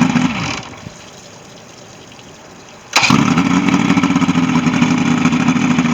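Boat engine running, shut off so that it winds down in pitch and stops, then restarted about two seconds later, catching at once and settling into a steady run. The quick restart shows the earlier no-start fault cured.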